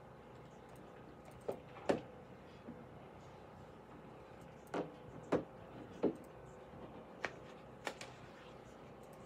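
Scattered light knocks and clicks, about seven of them, over a faint steady hum, with no speech.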